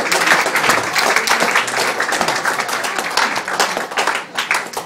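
Audience applauding, a dense round of clapping that thins out and fades away near the end.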